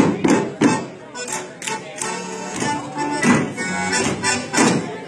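Live accordion-led Bavarian folk dance music, with a run of sharp slaps and knocks from Schuhplattler dancers striking their lederhosen, hands and wooden benches, about two a second.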